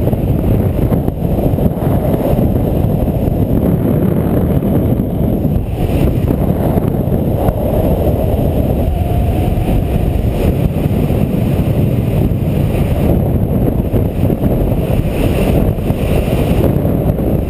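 Heavy wind rushing over a GoPro microphone in paramotor flight: a steady low rumble with no clear engine note.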